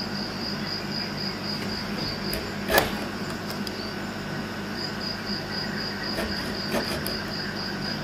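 Cricket chirping, a high pulsed trill of about three to four pulses a second that pauses for a couple of seconds midway, over a faint steady hum. A single sharp click a little under three seconds in is the loudest sound, and fainter ticks follow later.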